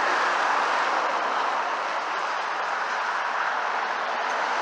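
Truck passing on the road: steady tyre and engine noise, even throughout, with no horn.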